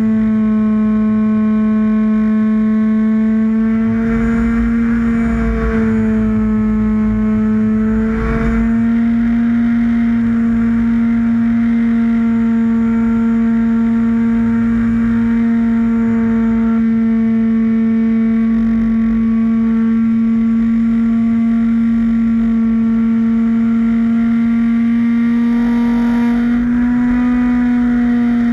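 Radio-controlled model airplane's motor heard from on board, running at a steady high pitch with wind rushing over the microphone. The pitch dips briefly about five and eight seconds in, with gusts of wind rumble around then, and rises slightly near the end.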